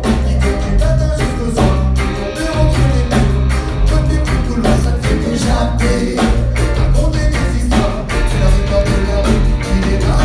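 Reggae band playing with a sung lead vocal over a heavy bass line and drums.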